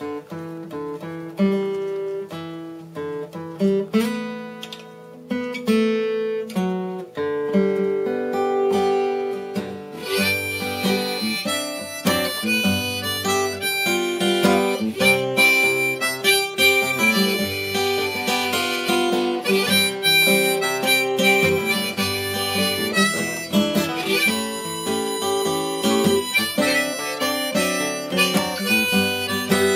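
Steel-string acoustic guitar picked alone, then joined about ten seconds in by a harmonica played from a neck rack, both carrying on together as an instrumental intro.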